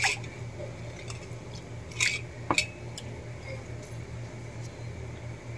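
A hand swishing basmati rice in water in a stainless steel pot, with a few sharp splashes or clinks against the pot at the start and again about two seconds in. A steady low hum runs underneath.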